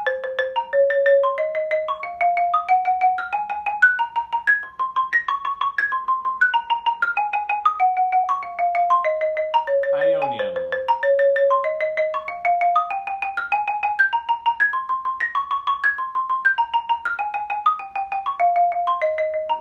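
Marimba played with yarn mallets: a fast, even stream of notes in a scale exercise, climbing step by step and then coming back down, twice over. A brief vocal exclamation cuts in about halfway.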